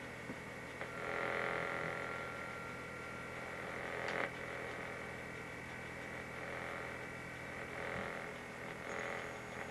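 Kicker Competition C6.5c subwoofer playing a low-frequency test sweep. It comes through as a buzzy rattle over a steady hum, swelling and fading, with one sharp click about four seconds in.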